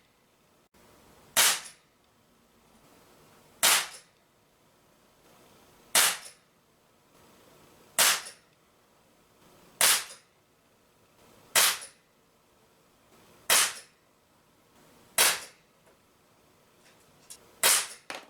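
Crosman Vigilante CO2 pellet pistol firing nine single shots, about two seconds apart, each a short sharp report.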